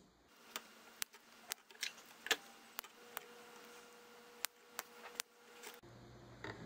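Small wire cutters snipping the protruding LED leads of a soldered LED matrix one at a time: about ten sharp snaps, roughly one every half second.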